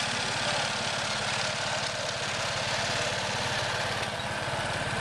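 Small vintage crawler tractor's engine running steadily as it drives past towing a plough, with a fast, even firing beat.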